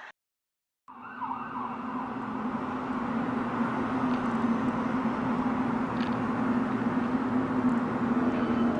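A steady, droning hum with a constant low tone, growing slowly louder, of the kind passed off as a mysterious 'strange sound' in the sky. It comes in after a brief cut to silence about a second in.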